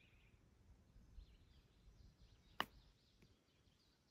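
One sharp click as a golf club strikes the ball on a short chip shot, about two and a half seconds in. Faint bird chirps under it.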